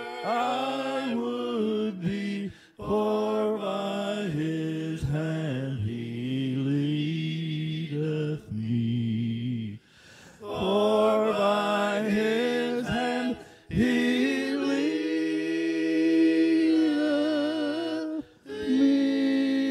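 A man sings a slow hymn into a microphone over a recorded a cappella backing of his own layered background voices. He holds several long notes, with short breaks between phrases.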